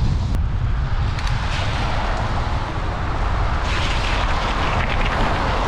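Motor traffic on a highway passing by, its tyre hiss swelling twice as vehicles go past. Under it there is a constant low rumble of wind buffeting the microphone.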